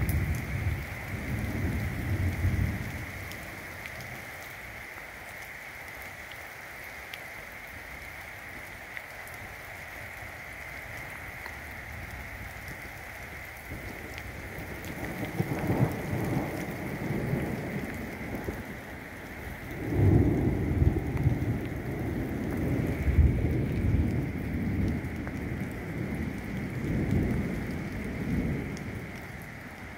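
Steady rain falling and hissing on a wet road, with low rolling rumbles of thunder at the start, again about halfway through, and a longer, louder one through the last third.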